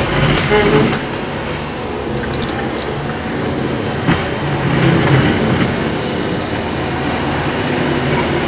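Bulldozer engine running with steady heavy-machinery noise and a few sharp metallic knocks.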